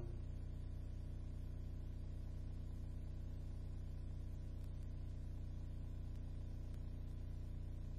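A steady low hum, even and unchanging, with no other sound.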